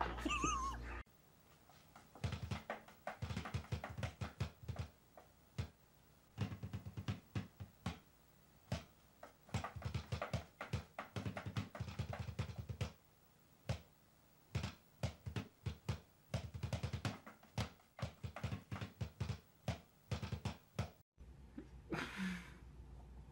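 Quick runs of drumstick strokes on a row of drums, played in short flurries that stop and start every second or so.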